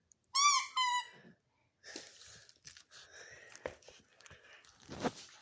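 A puppy giving two short, high-pitched yips in quick succession. Then comes a run of rustling, crinkling and tearing noises with sharp clicks as she rips and chews at something.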